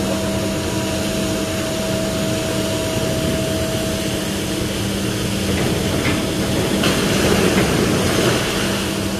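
Sennebogen material handler's engine and hydraulics running steadily with a constant hum and whine as it works its clamshell grab; the noise swells briefly around seven to eight seconds in.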